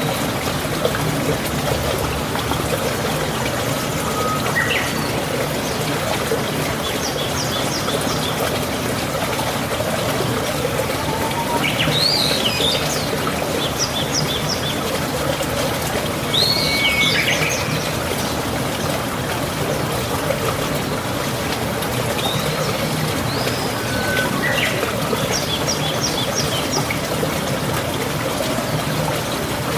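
Steady trickle of running water with a songbird repeating the same short phrase every few seconds, a quick rising and falling sweep followed by a run of rapid high notes.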